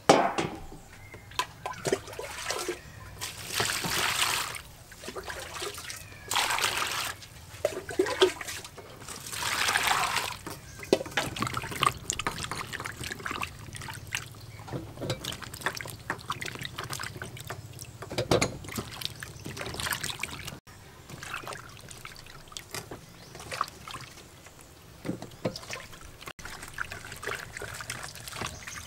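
Vegetables being washed by hand in a steel bowl of water: water splashes and trickles off bell peppers as they are lifted and dipped, in several bursts, with light knocks of produce against the bowl.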